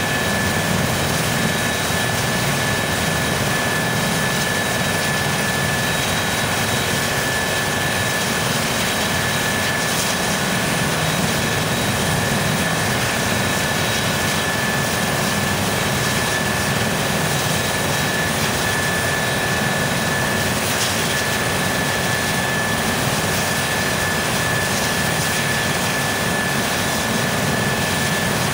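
Eurocopter EC135 twin-turbine helicopter running on the ground with its rotors turning: a steady high turbine whine over a low rotor rumble, holding level without spooling up.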